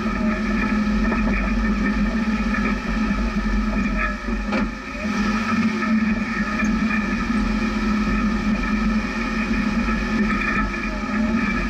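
Jeep driving slowly over a rough desert trail: steady engine and drivetrain running with a low hum, and a single knock about four and a half seconds in as it jolts over the ground.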